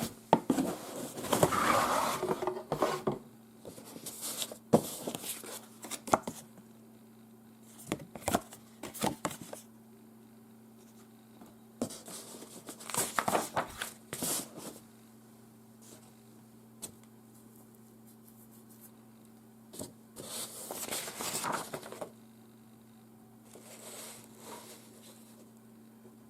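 Bursts of hand handling of hard plastic and metal parts, with sharp clicks, scrapes and rustling, as an airsoft Glock is worked into a plastic conversion kit; the bursts come and go with quiet gaps between them. A faint steady low hum runs underneath.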